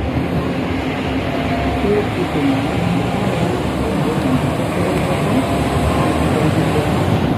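Tour bus driving on a wet road, heard from inside the bus: a steady engine and road rumble with no changes.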